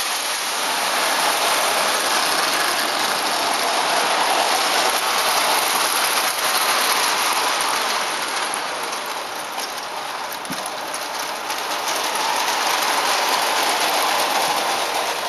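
Vintage clockwork tinplate O-gauge train running on tinplate track: a steady metallic rattle and whirr of wheels and clockwork, easing a little about halfway through and building again.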